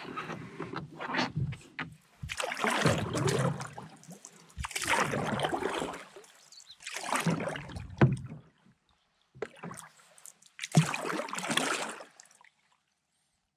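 Canoe paddle strokes: a swish of water at each stroke, coming about every two and a half seconds, with a couple of short low knocks in between. The strokes stop near the end.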